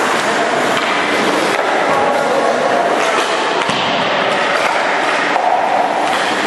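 Ice rink ambience: a steady scraping hiss of skate blades on the ice, with a few sharp knocks of sticks or pucks.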